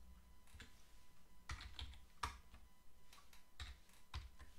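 Computer keyboard being typed on: a few separate keystrokes at an uneven pace, some in quick pairs, as a line of code is entered.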